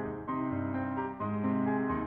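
Background piano music, with notes that change about every half second.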